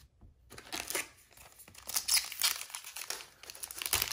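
Foil wrapper of a trading-card pack crinkling as it is handled and torn open. The crinkling starts about half a second in and grows louder about two seconds in.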